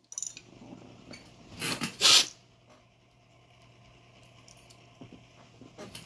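A person blowing their nose into a tissue: two short, loud blows about two seconds in, over a faint steady low hum.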